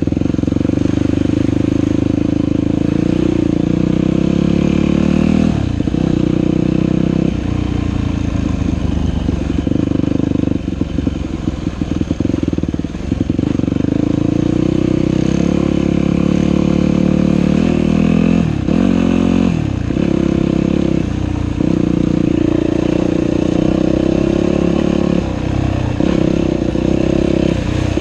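Dirt bike engine running on a trail ride, the throttle opening and closing. The pitch drops several times as the throttle is rolled off, and it revs up again about two thirds of the way through.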